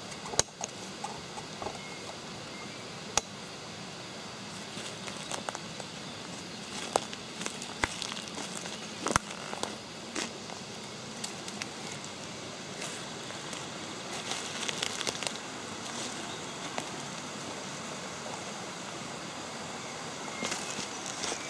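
Footsteps on a forest floor, with scattered sharp cracks and rustles of twigs and dry leaves underfoot, over a steady background hiss.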